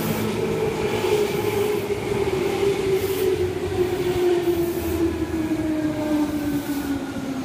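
Tobu 20000 series electric train pulling into the station, its motor whine falling steadily in pitch as it slows, over the rumble of the wheels on the rails.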